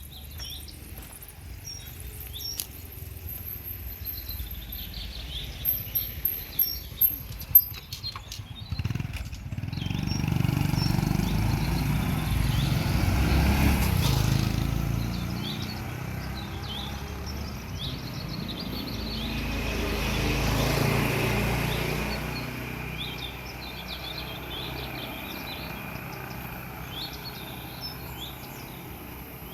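Birds chirping, with a few sharp clicks about six to eight seconds in. Then a motor vehicle passes, its low rumble rising and fading, and a second one passes about twenty seconds in.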